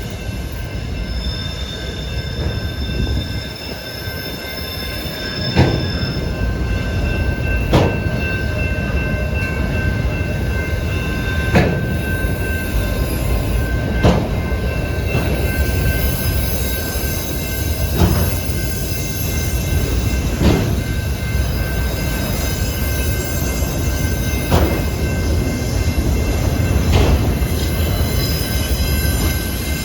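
Train cars rolling past with a steady low rumble. Wheels clack sharply over a rail joint every two to four seconds, and a thin, steady wheel squeal sounds above.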